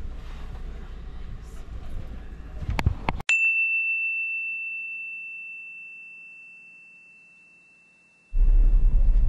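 Bus engine and road rumble heard from inside the bus, ending in a few sharp clicks. Then a cut to silence and a single high bell-like ding that rings on and fades slowly for about five seconds. Loud bus rumble comes back near the end.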